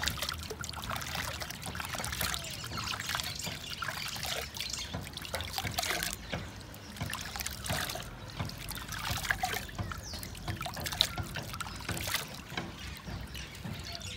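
Water scooped by hand from a shallow pool and dribbling into a clay pot: a run of small, irregular splashes and trickles.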